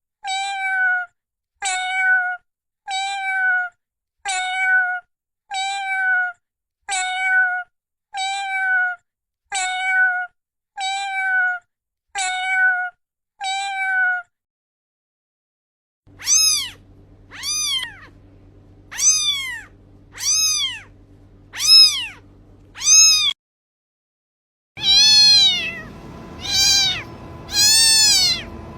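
Cat meows in three separate sound-effect clips. First, the same short meow repeats about once a second for about fourteen seconds. After a short gap come six longer meows that rise and fall in pitch, over a low hum. After another gap come about four louder meows over background noise.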